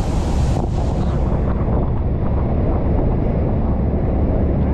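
Heavy wind buffeting the microphone over the steady rush of a large waterfall close by.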